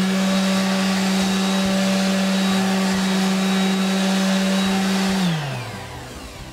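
Parkside PEXS 270 C3 random orbital sander running at its top speed with a steady electric-motor whine, its pad pressed against a block of wood. About five seconds in it is switched off and the whine falls in pitch as it spins down.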